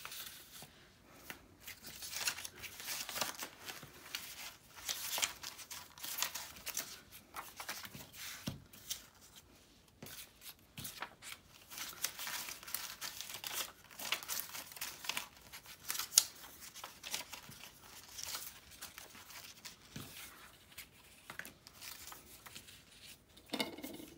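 Cut paper pieces rustling and sliding against each other as a pile of paper cutouts is sorted through by hand, in irregular bursts, with one sharper tap about two-thirds of the way through.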